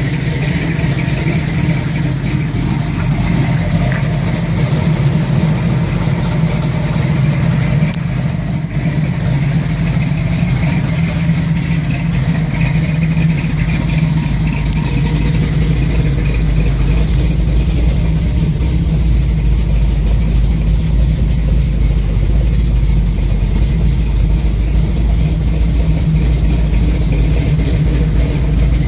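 1971 Chevrolet Camaro SS's 402 cubic-inch big-block V8 idling roughly and unevenly. Its deep low rumble grows louder about halfway through.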